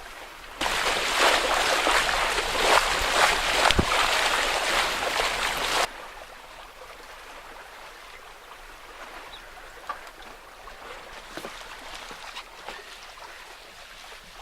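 Water rushing and splashing along a sailing yacht's hull, loud for about five seconds, then cutting off suddenly to a quieter steady wash with a few faint ticks.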